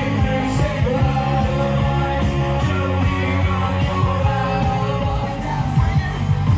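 Rock song playing loud, with singing, guitar and a steady beat.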